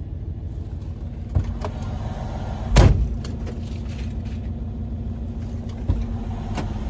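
Semi truck's diesel engine idling, heard from inside the cab while it warms up to defrost, with a steady hum joining about halfway through. A few knocks in the cab, the loudest about three seconds in.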